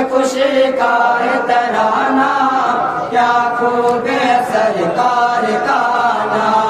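A group of men chanting verses in chorus, voices held on long sustained notes and breaking only briefly between phrases.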